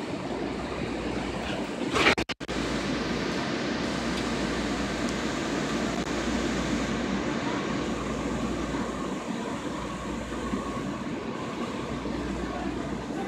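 Steady running noise inside a 1996 Breda LRV2 light rail car, an even rumble of wheels and motors. A single sharp knock sounds about two seconds in.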